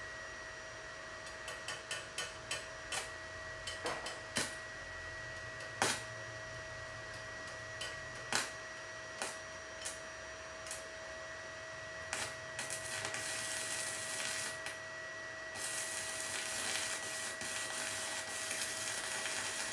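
Stick welding with a Wintech WIN200 Mini Pro inverter welder and a 3.2 mm electrode on thick steel plate. For the first dozen seconds come sharp, separate cracks and snaps as the electrode is scratched to strike the arc, then the arc crackles and hisses more steadily over a faint steady whine. Even at its maximum setting the small welder cannot properly weld the plate: the current keeps cutting out.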